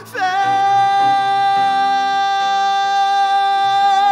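Male singer holding one long, steady high belted note on the word "fake", with piano chords changing beneath it.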